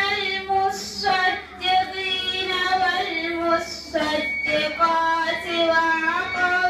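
A girl's voice reciting the Quran in a melodic, drawn-out chant: long held notes that waver and step in pitch, with two short breaks for breath.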